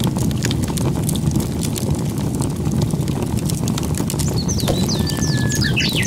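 A fire crackling, with a dense low roar under many sharp pops. From about four and a half seconds in, a few birds chirp over it.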